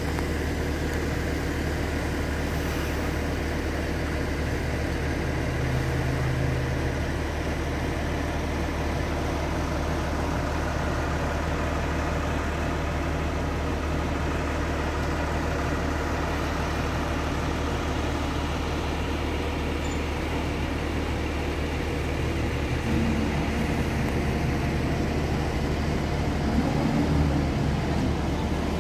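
Large mobile crane's diesel engine idling with a steady low hum, a little louder for a few seconds near the end.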